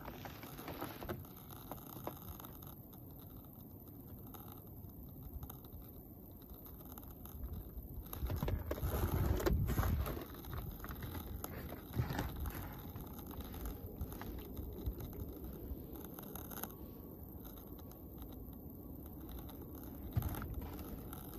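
Footsteps crunching irregularly on dry, frozen snow, with a louder low rumble on the microphone about halfway through. No aircraft engine is heard.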